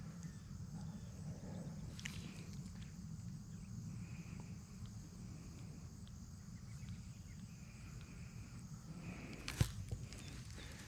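Faint outdoor ambience: a steady low rumble with soft, repeated high calls. A faint click comes about two seconds in and a sharp, louder click about nine and a half seconds in.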